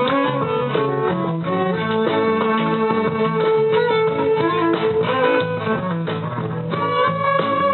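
Band playing a tune at rehearsal: guitar with a held, sustained melody line over it.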